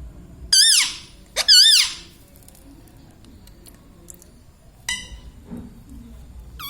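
Indian ringneck parakeet giving two loud, shrill calls with a wavering pitch, about a second apart, then a shorter call near the end.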